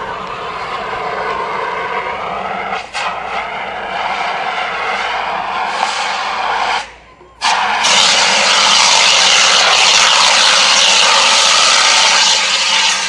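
Hand-held fire extinguisher discharging with a loud, steady hiss. It breaks off briefly about three seconds in, stops for about half a second near the middle, then resumes louder.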